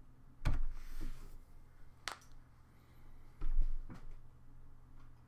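A few scattered knocks from a computer keyboard and desk over a low steady hum: a thump about half a second in, a sharp click around two seconds, and two more thumps between three and four seconds in.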